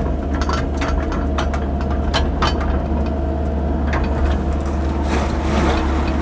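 Cat 308 mini excavator's diesel engine running steadily, with scattered sharp clicks and knocks. A rushing noise swells about five seconds in.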